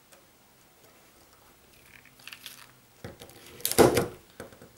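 IDC punch-down insertion tool pressing a telephone wire into a terminal slot of a junction box: faint handling rustle, then one sharp click-and-crunch about three and a half seconds in as the tool seats the wire.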